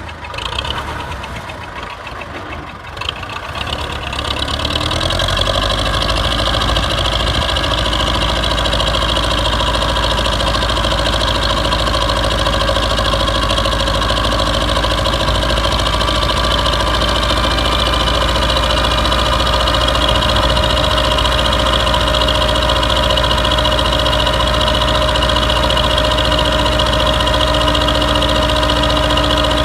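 A Belarus tractor's diesel engine running. For the first four seconds or so it is quieter and uneven; from about five seconds in it settles into a steady, unchanging idle.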